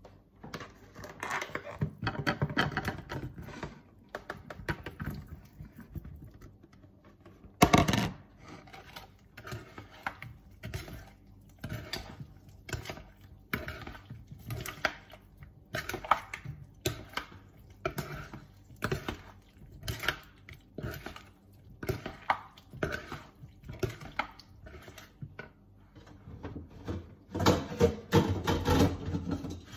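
A kitchen utensil repeatedly knocking and scraping in a mixing bowl, about one knock a second, busier for a few seconds near the start and again near the end. One sharper, louder knock comes about eight seconds in.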